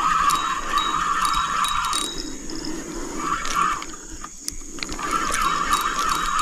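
Spinning fishing reel whirring in stretches as a hooked, hard-fighting river fish is played and reeled in: one long run at the start, a short one in the middle, and another from about five seconds in.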